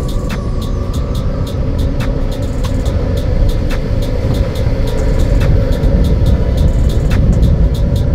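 Car driving, heard from inside the cabin: a steady low road rumble with frequent short clicks and knocks.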